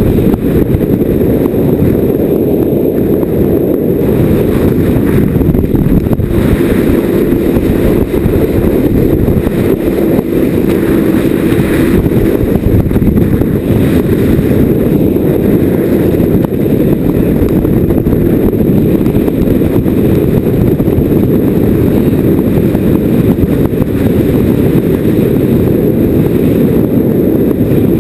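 A sportfishing boat running at speed: a steady, loud rush of wind buffeting the microphone over the drone of the engine and the hull through the water.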